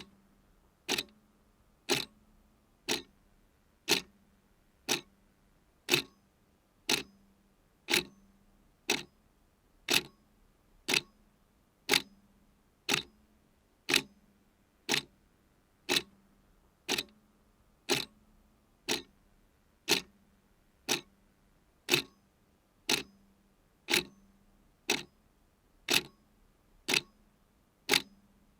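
Clock ticking steadily, one sharp tick each second, every other tick slightly louder, in a tick-tock pattern.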